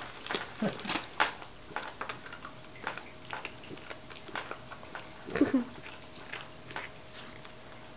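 A dog chewing a crunchy chocolate chip dog cookie, with irregular sharp crunches throughout. A brief low vocal sound comes about five and a half seconds in.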